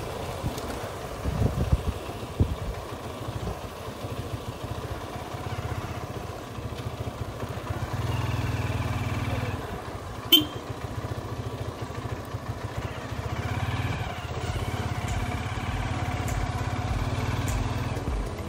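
Hero Karizma R motorcycle's single-cylinder engine running at a steady low pace, a little louder around eight to ten seconds in and again near the end. There are a few thumps about two seconds in and one sharp knock about ten seconds in.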